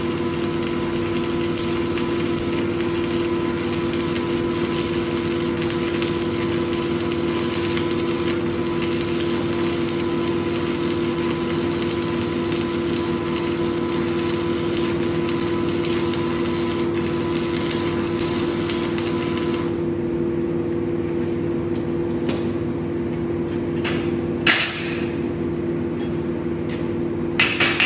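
Arc welding: a steady crackle of the arc over a constant electrical hum from the welding machine, the crackle stopping about twenty seconds in while the hum runs on. A sharp metallic knock follows a few seconds later, and quick tapping starts near the end.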